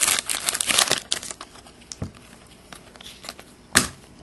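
A trading-card pack's foil wrapper crinkling loudly as it is torn open for about the first second, then faint rustling as the cards are handled, with one sharp snap-like tap near the end.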